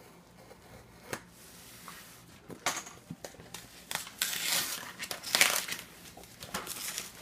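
Packing tape being torn and peeled off a cardboard box, with crinkling of tape and cardboard: a click about a second in, then a run of rasping tears from about two and a half seconds on.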